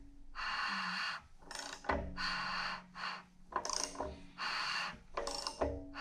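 A person breathing heavily close to the microphone, about four long breaths in a row roughly a second and a half apart.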